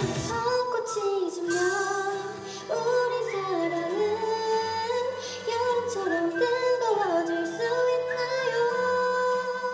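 K-pop girl group's female voices singing a slow melody live into microphones over a soft backing track. A drum beat drops out just after the start, leaving held low notes under the singing.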